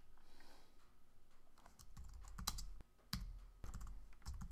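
Typing on a computer keyboard: faint, irregular keystrokes, with a few sharper key clicks about two and a half and three seconds in.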